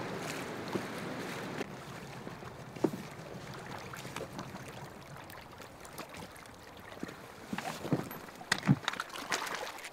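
Rushing river rapids for the first second and a half, then scattered clicks and knocks of cobbles shifting and clacking underfoot as a person climbs out of a dinghy onto a stony beach, busiest and loudest near the end.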